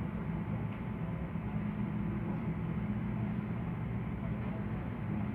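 Steady low mechanical hum of background machinery, even and unchanging, with a faint hiss over it.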